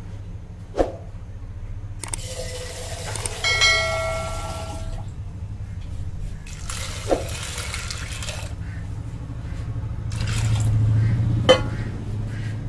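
Tap water running into a pressure cooker pot in several spells of steady rushing, with a few sharp clanks of metal.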